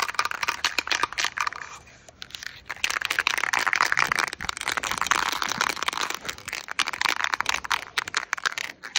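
Dense crackling and crunching handling noise from a hand-held phone being carried. It dips away briefly about two seconds in, then picks up again.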